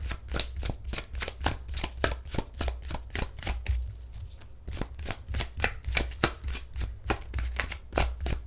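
Tarot deck being shuffled by hand: a quick, even run of card slaps and riffles, about five a second, with a short lull around the middle.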